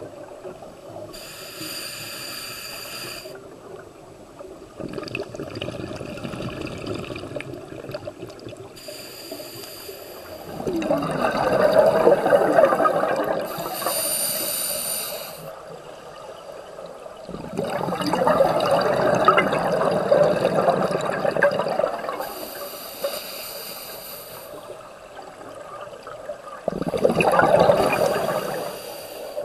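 Scuba diver breathing through a regulator underwater: short hissing inhalations alternate with three loud bursts of exhaled bubbles, one breath every several seconds.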